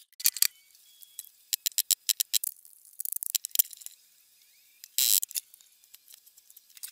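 Irregular sharp clicks and ticks, some single and some in quick clusters, with a short scratchy burst about five seconds in.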